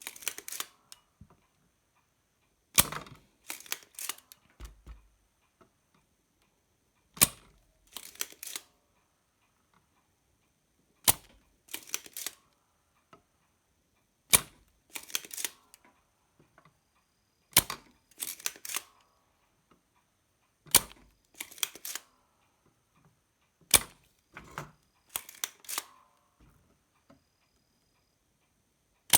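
Spring-loaded solder sucker (desoldering pump) being fired over and over to pull solder off the pins of a TDA7388 amplifier IC: a sharp snap about every three to four seconds, seven times, each followed by a short run of softer clicks.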